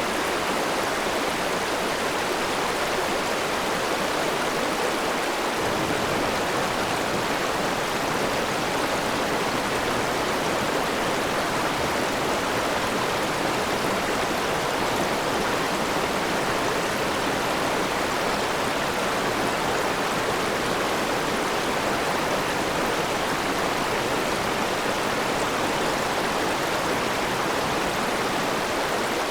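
A stream flowing steadily, an even, unbroken wash of running water.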